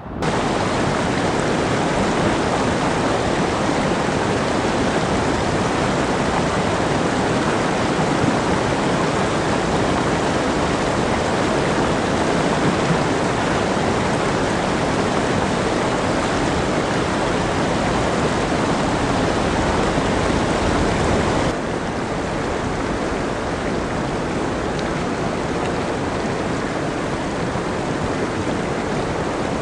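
Clear Creek's whitewater rushing in a steady, loud roar of churning river water. It cuts about two-thirds of the way through to a second stretch of rapids that is slightly quieter.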